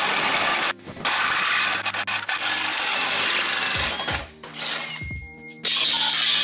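Power tools cutting the steel strut tower top: a cordless drill driving a hole saw into the metal, with short breaks about a second in and around four to five seconds. Near the end a grinder's cut-off wheel cuts the steel loudly.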